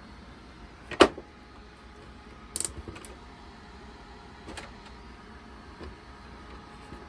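A sharp knock about a second in, then a short rattle of clicks around two and a half seconds, and a few faint taps, over a steady low hum.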